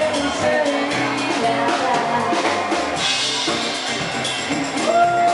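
A live band playing a song, with a drum kit keeping a steady beat. Near the end, a long held melody note comes in.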